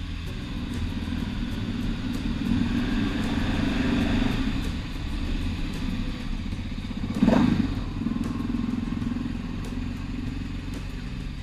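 Dakar motorcycle's engine running under way through a short road tunnel and out into the open. The engine note swells for a couple of seconds early in the ride through the tunnel, and there is one brief louder rush about seven seconds in.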